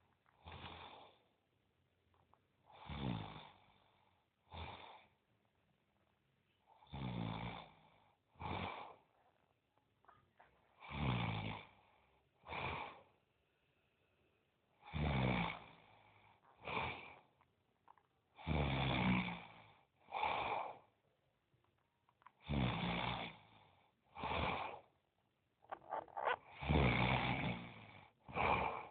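A sleeping person snoring heavily. Each breath cycle brings a long snore and then a shorter one, and the pair repeats about every four seconds with quiet gaps between.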